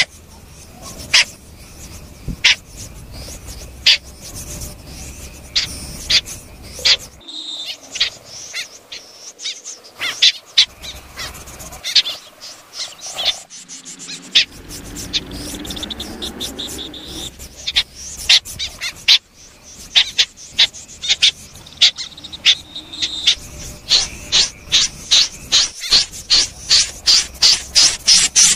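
Snipe calling: short, sharp, high-pitched calls repeated at uneven intervals, coming faster and louder over the last few seconds, about two a second.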